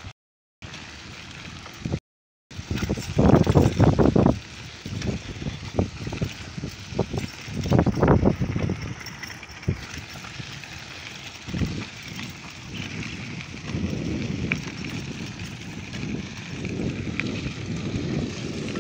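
Bicycles rolling over a gravel dirt road: a steady rumble of tyres on loose stones with the bike rattling, and louder bursts of rumble about three seconds in and again about eight seconds in. The sound cuts out briefly twice near the start.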